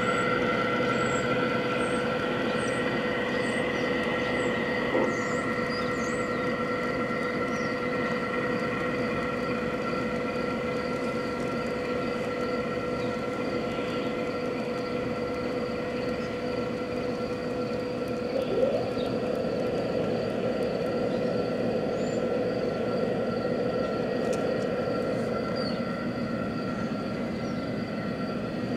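G-scale Aristo-Craft Dash 9 diesel model locomotive pulling a freight train of boxcars along the track, running steadily with a constant hum. There is a brief click about five seconds in and a short squeak about two-thirds of the way through.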